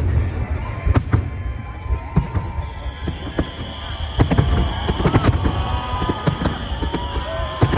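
Aerial fireworks bursting in quick succession: many sharp bangs over a continuous low rumble, with long steady high whistles running through them from about a second in.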